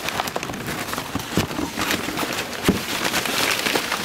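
Packaging being handled and pulled about: a dense crackling rustle with scattered clicks and a few knocks.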